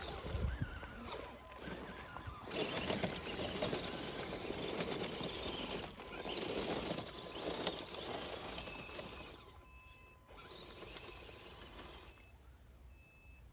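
Scale RC crawler trucks driving over dry leaf litter and dirt: tyres crunching through leaves, with the faint whir of the small electric motors and gearboxes. The sound starts and stops abruptly several times.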